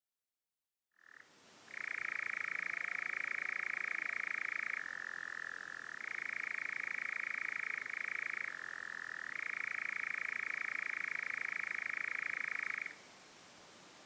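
European nightjar churring: one long, unbroken mechanical trill that starts about a second in, twice shifts a little lower in pitch for about a second, and stops shortly before the end.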